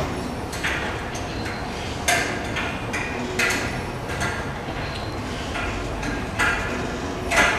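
2006 Suzuki GSX-R1000 front rim with its brake disc spinning on a spindle stand. It makes a steady rolling rumble, with a sharp clack every second or so.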